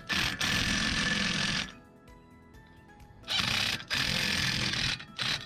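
Impact wrench running in two bursts of about a second and a half each, with a fast rattling hammer, plus shorter blips near the start and the end. Background music plays underneath.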